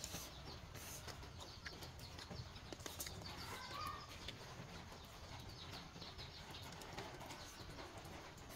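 Faint eating sounds: noodles slurped and chewed, with occasional light clicks of chopsticks against plates.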